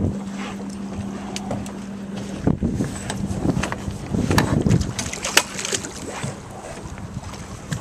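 Boat engine running with a steady low hum while a striped bass splashes at the surface beside the hull, with short sharp splashes and drips throughout. Gusts of wind rumble on the microphone twice.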